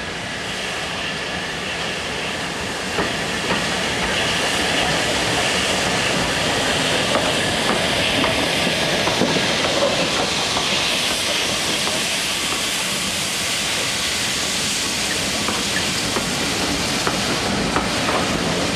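Steam locomotive and its coaches running slowly past, with a steady hiss of steam and occasional clicks of wheels over rail joints. It grows louder over the first few seconds as the engine comes alongside.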